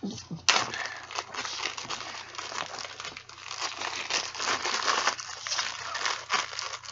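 Plastic bag holding a crunchy bead slime crinkling and crackling as it is handled and opened, starting about half a second in.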